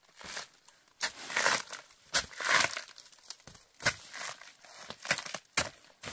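Fibrous plant stalks being torn and crunched by hand, in irregular tearing bursts with a few sharp snaps.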